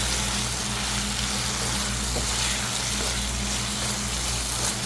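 Boneless chicken curry sizzling steadily in a pan, frying in the oil that has separated on top at the end of cooking, over a steady low hum.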